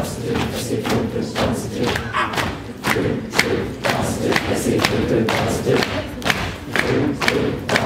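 A large group slapping the floor with their hands in a quick run of thumps, about two or three a second, while the crowd chants and shouts along.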